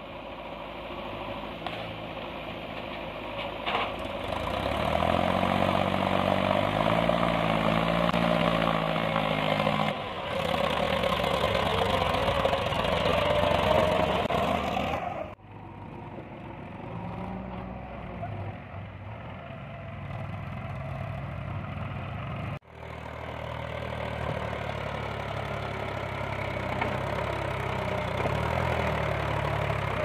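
Diesel engines of a JCB 3DX backhoe loader and a Mahindra tractor running and working under load, the engine pitch rising and falling in the first part. The sound breaks off suddenly about 15 and 23 seconds in where the clips change, then the engines carry on.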